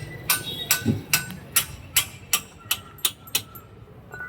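Hammer blows on metal in a steady run, about two to three strikes a second, each ringing briefly.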